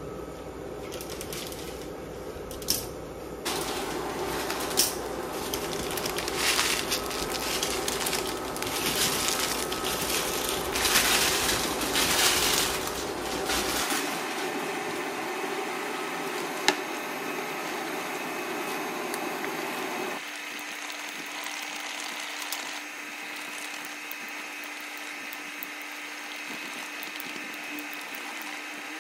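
Broth boiling in a nonstick pan under a bundle of rice vermicelli noodles: a steady bubbling hiss that changes abruptly a few times, with a few sharp clicks and knocks.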